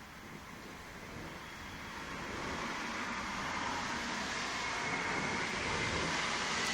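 Thunder rumbling, swelling over about three seconds and then rolling on steadily.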